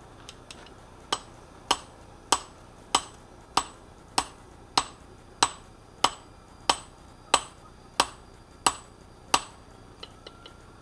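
Hand hammer striking a red-hot layered steel billet for Damascus on a block anvil: fourteen steady blows, about one every 0.6 seconds, each with a short metallic ring. A couple of light taps come just before the first blow and just after the last.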